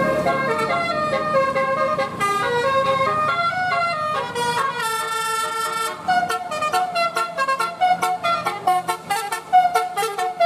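Bus telolet horn, a multi-tone musical air horn, playing a melody of stepping notes. The notes are held at first, then turn short and quick about six seconds in.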